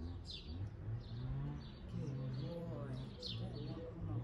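Small birds chirping, a string of short falling calls, over a low indistinct voice.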